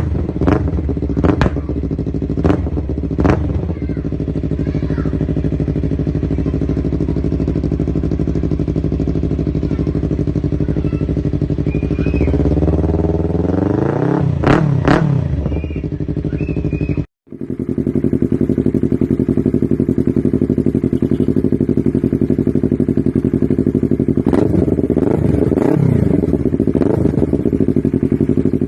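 Yamaha R3 / MT-03 parallel-twin engine running through an Akrapovic GP Line full-system exhaust. It idles with a few quick throttle blips in the first few seconds and a longer rev that rises and falls in the middle. After a short break it idles again, with more quick blips near the end.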